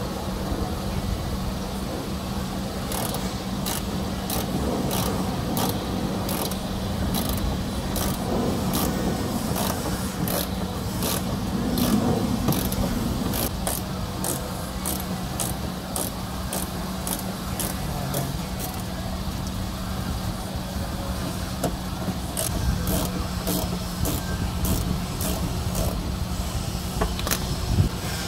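A screw being turned into the plastic wheel-well liner of a car, making a regular run of short high clicks about two a second, with a pause of a few seconds near the end. A steady low hum runs underneath.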